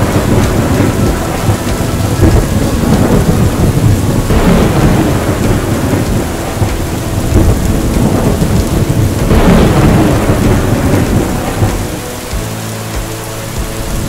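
Heavy rain with rolling thunder. The rumble swells three times: at the start, about four seconds in and about nine seconds in. It eases somewhat near the end.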